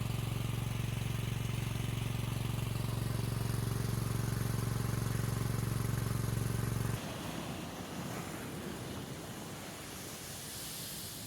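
A motor running with a steady, even hum that cuts off suddenly about seven seconds in, leaving a soft hiss.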